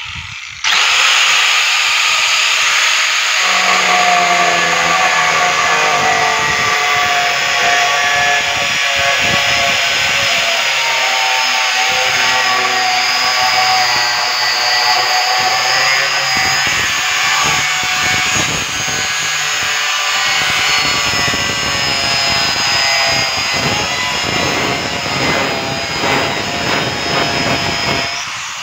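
Handheld electric angle grinder with a cutting disc running through a corrugated cement roofing sheet: a loud, steady grinding whine whose pitch wavers as the disc bites. It grows louder about a second in as the cut gets going.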